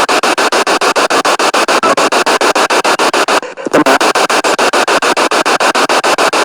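Spirit box radio sweeping rapidly through stations: loud static chopped into fast, even pulses many times a second, with a brief break about three and a half seconds in.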